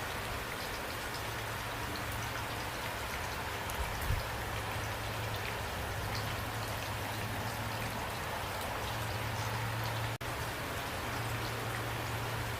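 Steady rain falling, with individual drop ticks scattered through it over a low steady hum. The sound cuts out for an instant about ten seconds in.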